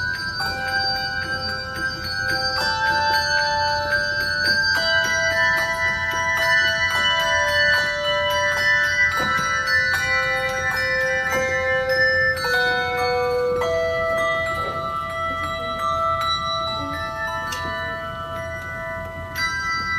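Handbell choir of four ringers playing a tune: clear ringing bell notes struck one after another, several sounding together and each left to ring on.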